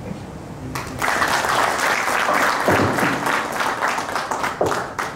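An audience applauding, starting about a second in and dying away near the end.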